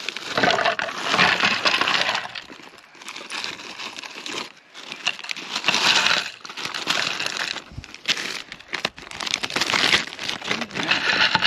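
Ice cubes tumbling from a plastic zip-top bag into a plastic tumbler of coffee, clinking and rattling in several pours, with the bag crinkling.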